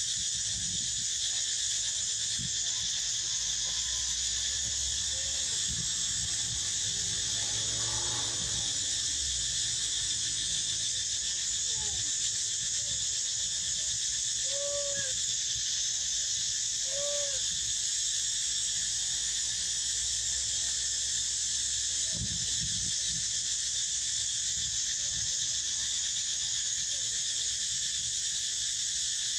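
Steady, high insect chorus, with a few short squeaky animal calls over it, two clearer ones about halfway through.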